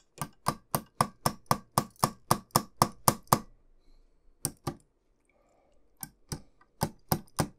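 Small hammer tapping exhaust pipes into place on a scale-model motorcycle engine: a quick run of about a dozen light taps, roughly four a second, then after a pause a few more spaced taps.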